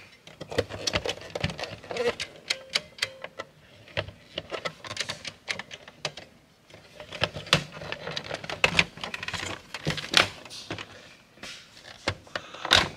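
Hard plastic parts of a large Transformers toy clicking, knocking and rattling as they are handled and pushed together, in irregular sharp clicks and taps.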